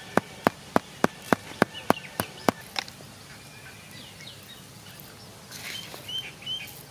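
Stone pestle pounding spices in a stone mortar, about ten steady strikes at roughly three a second, stopping about three seconds in. Faint bird chirps follow.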